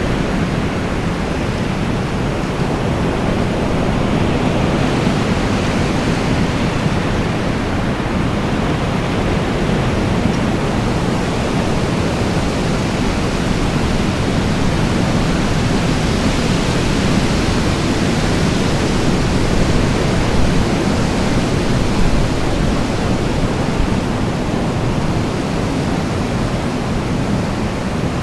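Wind blowing steadily: a dense, unbroken rushing noise whose hiss slowly swells and eases over several seconds.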